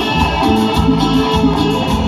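Live band playing amplified through PA speakers: electric guitar, bass and percussion over a steady dance beat.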